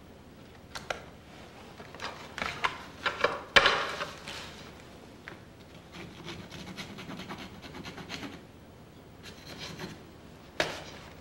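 Paint being worked onto a canvas by hand: short, scratchy scrubbing strokes, loudest about three and a half seconds in, then a softer stretch of rubbing, and a few more strokes near the end.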